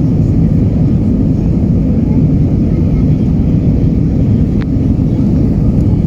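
Steady jet engine and airflow noise inside the cabin of an Airbus A319 in flight, heard from a window seat, with one faint tick about four and a half seconds in.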